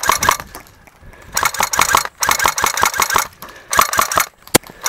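Automatic airsoft gun firing four rapid full-auto bursts of under a second each, the shots clattering at a fast even rate, with a single shot near the end.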